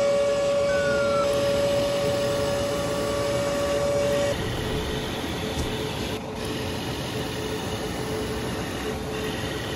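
Small electric water pump and motors of an RC fire truck whining steadily while it sprays water. One of the two steady tones stops about four seconds in; the other carries on.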